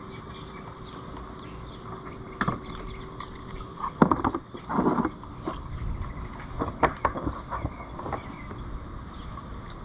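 A hooked peacock bass splashing at the surface beside a kayak as it is reeled in: irregular splashes and knocks begin about two and a half seconds in, the loudest a little after four seconds, over a steady background hiss.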